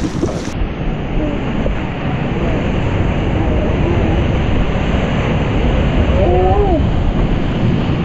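White-water river rapids rushing steadily and loudly around an inflatable raft, with brief faint shouts from the rafters about six seconds in.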